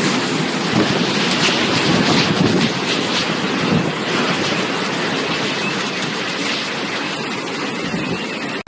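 Storm wind and rain making a loud, steady rushing noise that swells and eases slightly.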